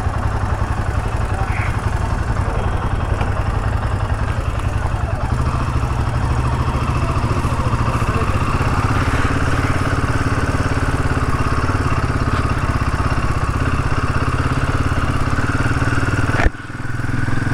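Royal Enfield Himalayan 450's 452 cc single-cylinder engine running steadily, dropping away abruptly about a second before the end.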